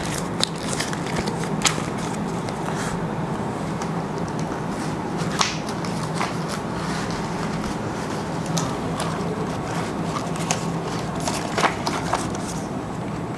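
Sheets of paper rustling and being handled, followed by scattered light clicks and taps at a desk, over a steady low hum.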